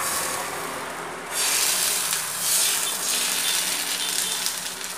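Thin rice batter sizzling as it is poured onto a hot iron griddle and spread in circles with a metal ladle, the ladle rubbing over the pan. The hiss grows louder about a second in.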